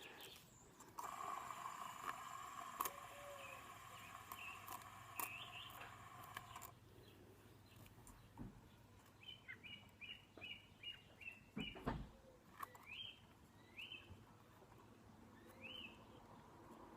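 Faint bird chirps: a quick run of about eight short chirps around the middle, then a few single rising chirps further apart. For the first six seconds or so a faint steady tone sounds, with a few light clicks scattered through.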